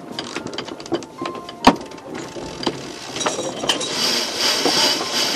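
Cockpit sheet winch on a sailing yacht being worked during a tack: a run of quick ratchet clicks, with one sharp, loud click about a second and a half in. From about four seconds in a louder rushing hiss joins the clicking.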